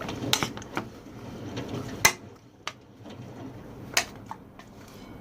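Pork being worked into its marinade in a bowl, with soft wet rustling and a few sharp clinks against the bowl, the loudest about two seconds in.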